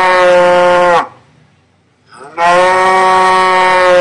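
Cow mooing: one long moo ends about a second in, and after a short gap another begins about two seconds in, rising in pitch at its start and then held steady.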